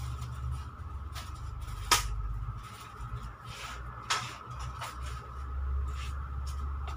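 Plastic-wrapped face mask packs rustling and clicking against a metal display rack as they are handled and hung, with two sharp clicks standing out, about two and four seconds in. A steady low hum runs underneath.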